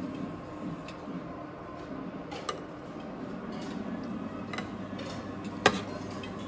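Metal serving spoon clinking and scraping in a stainless steel buffet dish, a few light clinks with one sharper clink near the end, over a steady low hum.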